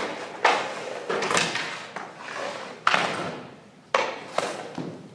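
Hockey drill on the ice: about five sharp hits and knocks, roughly a second apart, as sticks, puck and skates strike, each followed by a short scraping tail that echoes in the rink.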